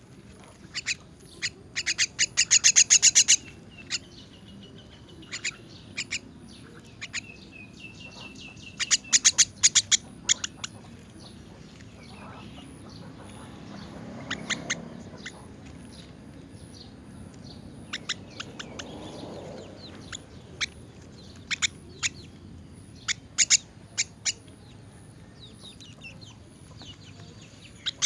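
Myna chicks calling: bursts of harsh, rapid rasping calls, scattered single sharp calls, and a thin held whistle-like note a few seconds in. These are begging calls of young mynas at feeding time.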